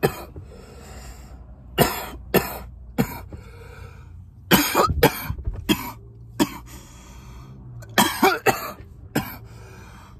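A young man coughing in repeated harsh fits of two or three coughs, starting about two seconds in, from a hit of a Delta-8 live resin vape.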